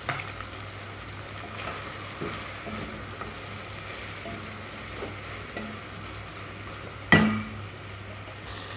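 Shrimp, potato and carrot pieces frying in oil in a pan: a steady sizzle with stirring, over a low hum. One sharp knock about seven seconds in is the loudest moment.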